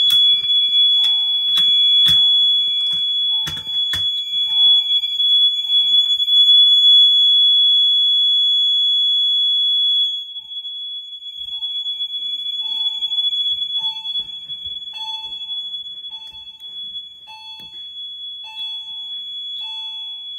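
Fire alarm system in alarm after its Kidde 278B manual pull station is pulled: a loud, continuous high-pitched horn tone with a lower short beep repeating about once a second. The sound becomes quieter about ten seconds in.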